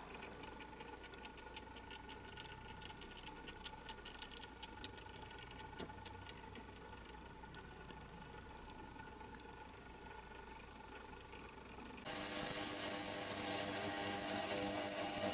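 Faint background with light ticking, then about twelve seconds in a loud, harsh rasping noise of a tool at work starts suddenly and keeps going.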